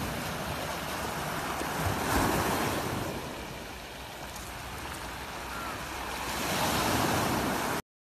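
Sea surf washing around concrete breakwater blocks, swelling louder about two seconds in and again near the end, then cutting off suddenly.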